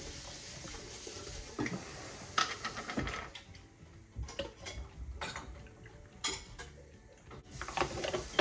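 Kitchen work with metal utensils and pots: running or pouring liquid for about the first three seconds, then a series of separate clinks and clatters as utensils and pot are handled.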